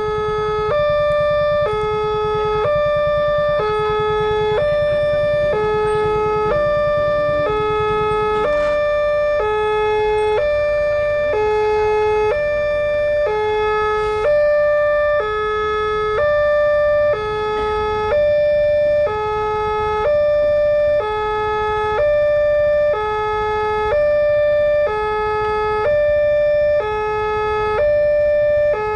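Electronic two-tone warning alarm of an Indonesian railway level crossing, the new NP-type gate, alternating steadily between two pitches about once a second to warn that a train is coming. A low rumble sits under it for roughly the first nine seconds.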